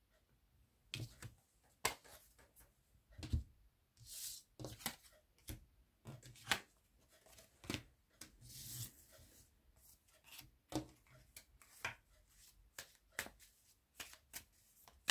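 A deck of tarot cards being shuffled by hand: faint, irregular clicks and slaps of the cards, with a couple of longer swishes of cards sliding against each other.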